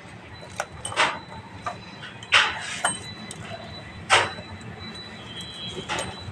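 Sharp metallic clicks and knocks, about half a dozen at irregular intervals, from hand work with tools and metal parts on a motorcycle cylinder head while the camshaft timing chain is set, over a steady low hum.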